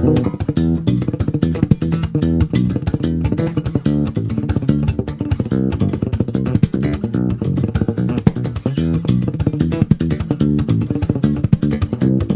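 Ken Smith BSR4 electric bass played solo, a fast, busy run of plucked notes and double-stops with sharp percussive attacks, between sung lines of a medley.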